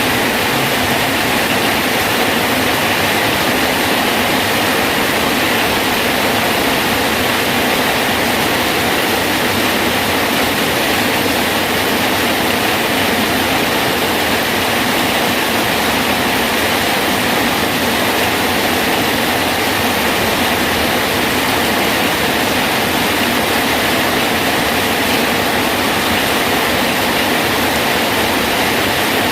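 Steady rain falling on a bridge, an even, unbroken hiss of dense raindrops with no change throughout.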